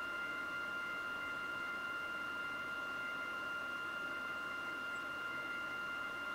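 A steady high-pitched electrical whine, a few thin unchanging tones over a constant hiss, with no other sounds.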